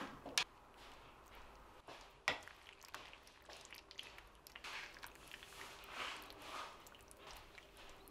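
Chopsticks clicking against a ceramic bowl a few times, then a ladle pouring broth over noodles in the bowl in short, soft splashing pours.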